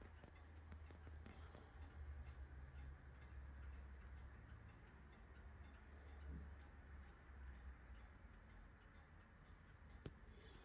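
Antique Japy Frères French mantel clock's 8-day pendulum movement ticking faintly and evenly at a quick pace, over a low rumble. One sharper click stands out about ten seconds in.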